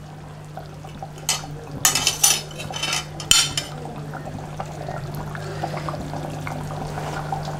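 Metal spoon clinking and scraping against the side of a steel pressure cooker as thick curry is stirred, with several sharp knocks in the first few seconds over a steady low hum.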